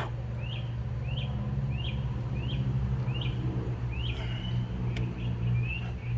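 A bird chirping over and over, a short call about every half second, over a steady low hum. A single sharp click about five seconds in.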